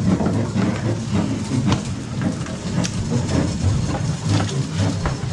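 Steady low rumble aboard a fishing boat, with a few light knocks and clicks from fish being handled on deck.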